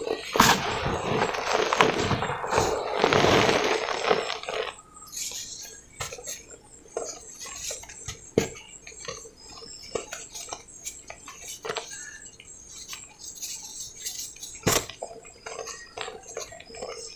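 Hands crumbling and sifting dry cement powder and lumps in a metal basin: a dense, crackling crumble for the first four seconds or so, then scattered soft crunches and light taps as chunks are squeezed apart, with one sharp click about fifteen seconds in.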